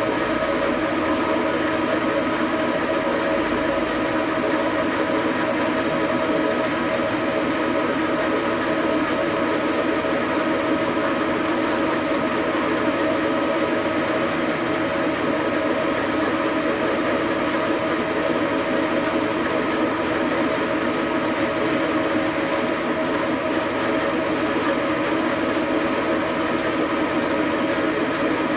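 Engine lathe running steadily, its gear train giving a constant whine, while a cutting insert turns a series of narrow grooves into a spinning metal bar to form the barbs of a 1½-inch hose barb fitting. A brief faint high tone comes about every seven seconds.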